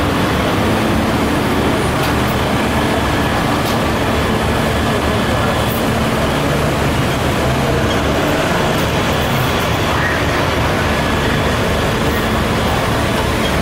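Steady street traffic noise, with the low hum of heavy vehicle engines running close by.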